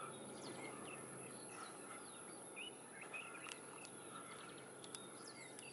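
Faint outdoor background with several birds chirping and calling in short rising and falling notes.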